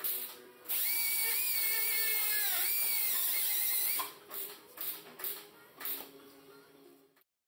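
Oxy-acetylene gas-welding torch flame hissing steadily with a high whistling tone that wavers and dips near three seconds in. From about four seconds it drops to a few short hisses and pops, then stops.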